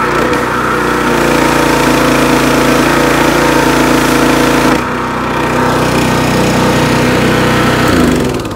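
Small single-cylinder Powerease petrol engine on a pressure washer, running steadily on choke just after a cold start, with the hiss of the high-pressure spray from the gun. Near the end the engine note drops and dies away.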